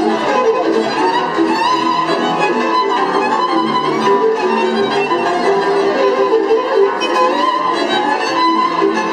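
Live Hungarian Romani band music: a lead violin plays a melody with sliding notes over a second violin, cimbalom, cello and double bass.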